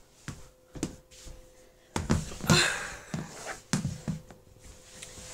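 Handling noise from dolls being moved about close to the microphone: a series of knocks and taps, with a louder rustle about halfway through, over a faint steady hum.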